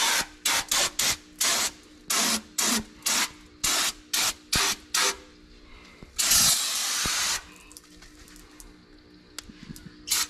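An aerosol can of brake cleaner sprayed into a car's wheel well to clean it, in a rapid string of short hissing spurts, about three a second, for the first five seconds. Then one longer spray of about a second follows.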